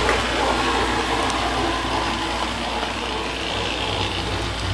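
New GE dishwasher running: a steady pump-motor hum with water rushing inside the tub.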